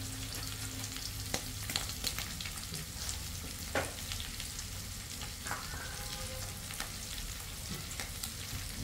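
Onions, garlic and sardines sautéing in olive oil in a metal wok, with a steady sizzle and fine crackling. A couple of sharper clicks stand out, one about a second in and one near the middle.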